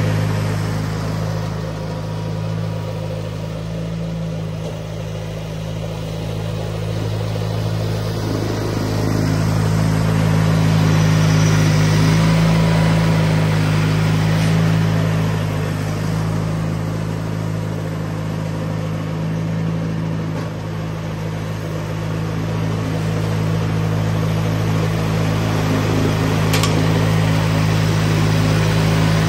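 1992 John Deere 318 garden tractor's Onan two-cylinder engine running steadily while driving its front-mounted snowblower through wet snow; the level swells and eases a little as the tractor moves and takes up snow.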